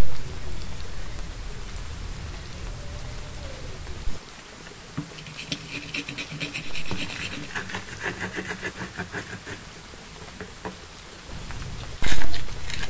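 Pestle grinding shallots, garlic and white pepper in a cobek, an Indonesian stone mortar: a run of quick, repeated crunching and scraping strokes starting about five seconds in and lasting several seconds. A short loud burst comes near the end.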